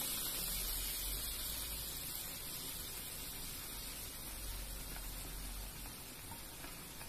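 Prawn masala sizzling and simmering in a pan, a steady hiss that slowly fades.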